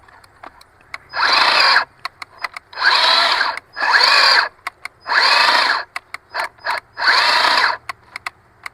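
Harbor Freight cordless electric chainsaw run in five short bursts of under a second each, with sharp clicks in between. It is on a small 1.5 Ah battery that is just about to be suspected of being dead already.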